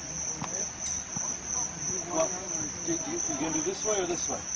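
Crickets trilling: one steady, unbroken high-pitched tone.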